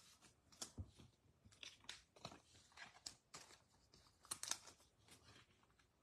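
Faint, scattered crinkling and clicking of trading cards and a foil pack wrapper being handled on a tabletop, with a slightly louder cluster about four seconds in.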